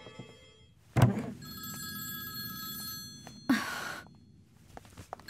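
A phone ringing: a ring of about two seconds, then a pause, then the ring starting again at the end. A sudden loud thump comes just before the first ring, and a short noisy burst comes in the pause.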